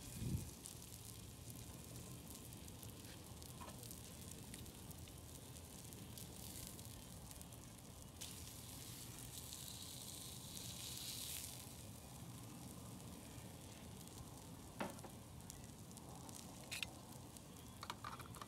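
Slices of meat sizzling faintly and steadily on a hot griddle. A knock from the metal spatula on the griddle comes just after the start, with a few short clicks of utensils near the end.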